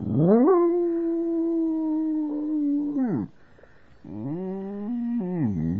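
Dog howling its imitation of "I love you": a long call that rises, holds steady for about three seconds and drops, then a second, lower call that wavers up and down.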